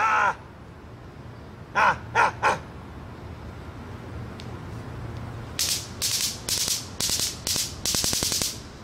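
A crow cawing: one call at the start, then a quick run of three caws about two seconds in. In the second half comes a series of six short, hissy rasping noises.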